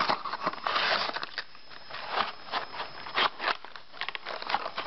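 Cardboard retail box being opened by hand: its flap and the paper inserts inside rustle and crackle in a run of short scrapes and clicks, busiest in the first second or so.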